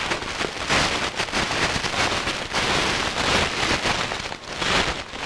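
Boots crunching and shuffling through dry fallen leaves, a dense continuous crackle.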